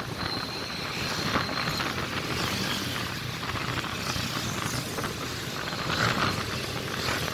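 Motorcycle riding on a road: the engine runs steadily under wind and road noise on a phone's microphone. A thin, high, steady tone sounds for a second or two near the start.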